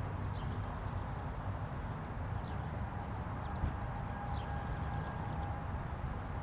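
Distant Federal Signal 2001-series rotating outdoor warning siren sounding a steady alert tone that swells and fades as the siren turns, faint under a steady low rumble, with a few short high chirps.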